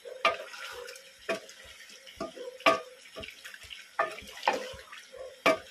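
A spoon stirring chicken curry in a metal pot, knocking against the pot about half a dozen times over a steady sizzle of the frying sauce.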